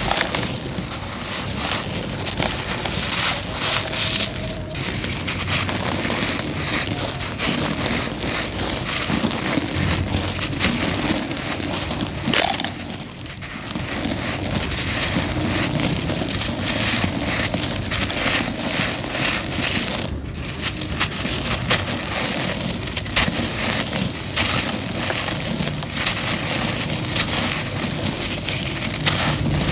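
Homemade cement crushed and crumbled in a continuous gritty crunching made of many small cracks, with a short lull about 13 seconds in.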